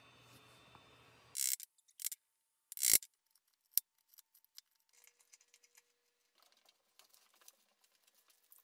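Hand work with a chisel on a wood inlay pocket: three loud, sharp scraping strokes in the first three seconds, then light scratching and small ticks.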